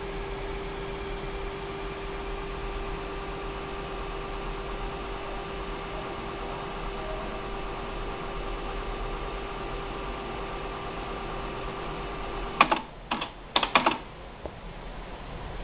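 Aiwa AD-S750 cassette deck: a steady hiss and hum with a faint constant tone, then several sharp mechanical clicks in quick succession near the end, typical of the deck's transport keys being pressed.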